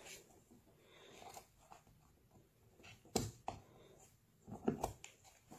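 Faint rustling and scratching of fingers on the fabric cover of a ballistic backpack panel, picking at a hole where a bullet has lodged inside. A sharp click or tap stands out about three seconds in, and a couple more come near the end.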